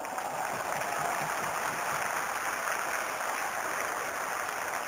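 Football stadium crowd cheering and clapping: a dense, steady wash of noise.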